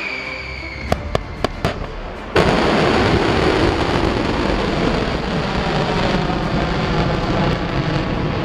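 Ballistic missile launch: a few sharp cracks, then about two and a half seconds in the rocket motor's exhaust noise starts abruptly and runs on loud and steady.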